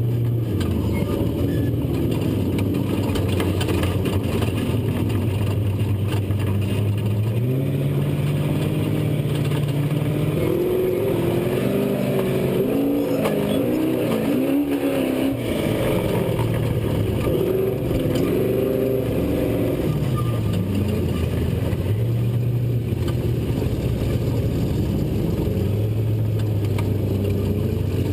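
Off-road race truck's V8 engine heard on board, running at steady revs, stepping in pitch, then rising and falling quickly for several seconds through the middle as the throttle is worked, before settling back to a steady note.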